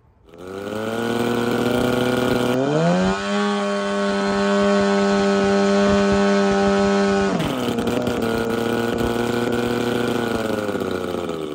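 DLE 222 twin-cylinder two-stroke paramotor engine running up with a propeller in a static RPM test. It revs up about three seconds in and holds a steady high note at full throttle. Around seven seconds in it throttles back to a lower steady note, then fades out near the end.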